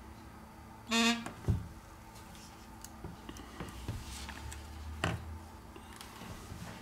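A short buzz of about a third of a second from the Essential Phone PH-1's vibration motor as the phone powers on, followed by a sharp knock and light handling clicks of the phone parts on the bench.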